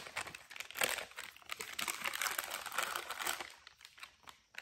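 Plastic wrapper of a packaged Quest Bake Shop muffin crinkling as it is pulled open by hand. The crackling is dense for the first three seconds or so and dies away near the end.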